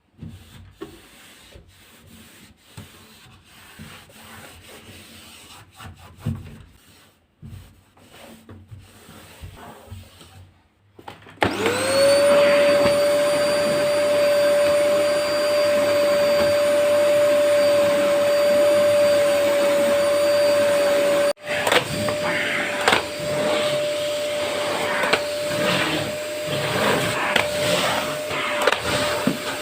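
Light handling and rustling, then about eleven seconds in a vacuum cleaner switches on: its motor spins up quickly to a steady whine and runs on loudly, with knocks and bumps from the machine being moved around.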